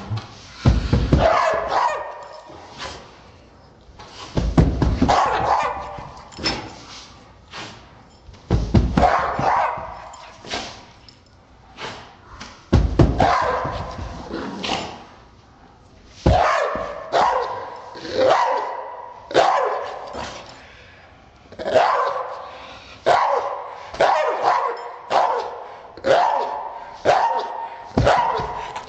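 A small dog barking angrily, the barks slowed down and deepened: drawn-out barks about four seconds apart at first, then about one bark a second for the second half.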